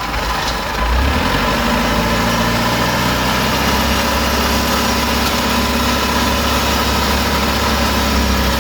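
Kubota DC70 combine harvester's diesel engine running steadily, getting louder about a second in and then holding there.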